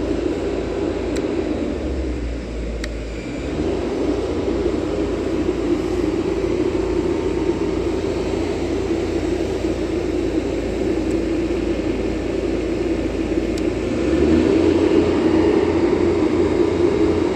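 ArcGen 300 super-silenced diesel welding generator running steadily. About fourteen seconds in it grows louder.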